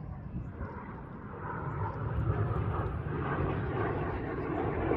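Jet noise from Red Arrows BAE Hawk T1 trainers flying a display pass, a rushing noise growing steadily louder as the aircraft come in.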